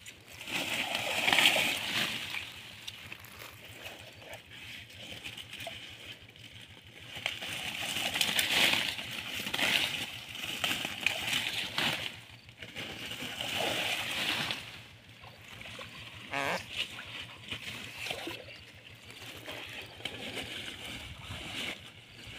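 Splashing and sloshing of shallow pond water as hands work through a muddy net among water-hyacinth plants, coming in irregular surges, loudest about a second in and again around eight to ten seconds in.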